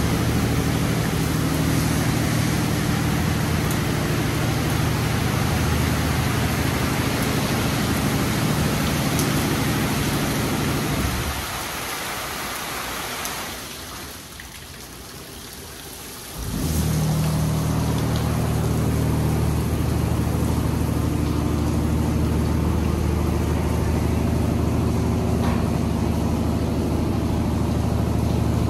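Automatic car wash machinery running with a steady low hum under a loud hiss. The noise fades away about eleven seconds in and comes back suddenly some five seconds later.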